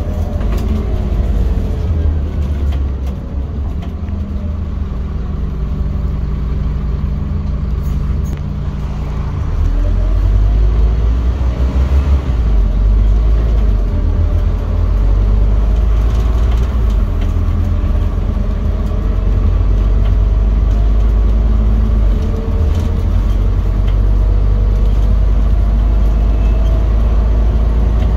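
Scania OmniCity bus engine and drivetrain running while the bus drives, heard from inside the passenger saloon as a deep, steady drone. About ten seconds in it grows louder with a rising pitch as the bus accelerates, then holds loud.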